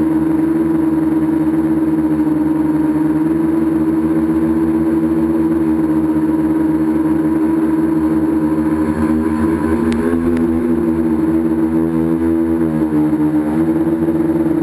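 Tricopter's three electric motors and propellers humming steadily, heard from the camera on board the craft; the pitch wavers and dips briefly near the end. A short click about two-thirds of the way through.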